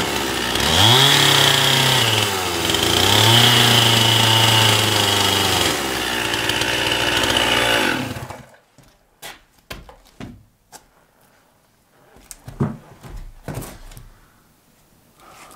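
Chainsaw cutting wood, its engine revving up under load, dipping briefly, revving again and then falling away, until it cuts off about eight seconds in. After that come scattered light knocks and rustles.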